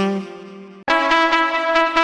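Music: a held wind-instrument note fades out, then just under a second in new music cuts in abruptly, with sustained horn-like chords over a steady beat.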